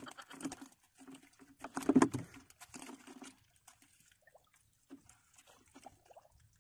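Collapsible net crab trap being handled: scattered clicks and rustles of the netting and frame, with a few muffled knocks, the loudest about two seconds in, thinning to faint ticks later on.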